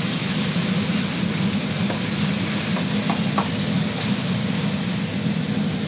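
Coconut milk sizzling in a hot pan of oil-fried red curry paste and garlic: a steady hiss over a constant low hum, with a few light clicks in the middle.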